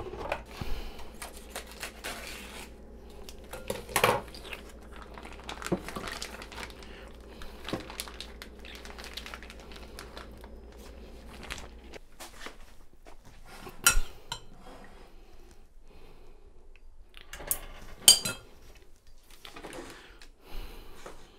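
Kitchen handling sounds: a plastic vacuum bag crinkling, and metal tongs clinking against a glass bowl as a cooked tri-tip is lifted out onto a cast-iron griddle. Sharp clinks stand out about four seconds in and again around fourteen and eighteen seconds.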